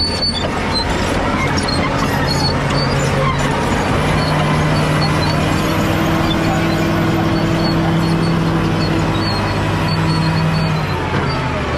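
Caterpillar D7G bulldozer's six-cylinder diesel engine running steadily. The engine note rises about four seconds in, holds, and drops back near the end.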